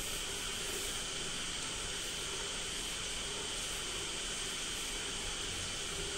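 Steady hiss of the recording's background noise, even throughout, with a faint high whine.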